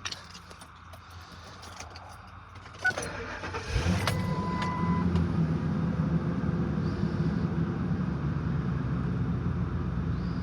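Ford F-250's 5.4-litre V8 started with the key: a few key clicks, a short crank, the engine catching about four seconds in, then idling steadily with a short beep just after it starts. The idle follows a new coil pack on cylinder 6, fitted to cure a P0306/P0316 misfire.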